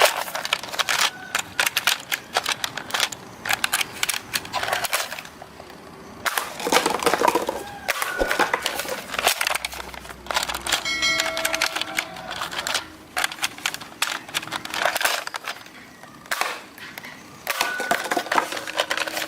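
Plastic toy double-barrel shotgun being worked and fired: repeated sharp plastic clicks and clacks, coming in irregular runs.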